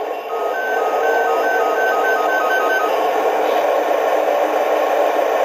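A Lionel LionChief GE Tier 4 toy locomotive's sound system playing a run of short electronic chirps that alternate between two pitches and quicken before stopping about three seconds in. The chirping is the locomotive searching for a Bluetooth signal from its remote or phone. A steady hum from the locomotive's speaker runs underneath.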